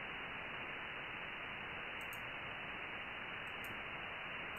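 Shortwave receiver hiss from a web SDR tuned to the 40-metre amateur band in upper sideband, a steady band-limited static with no clear signal in it. A few faint clicks come in the second half.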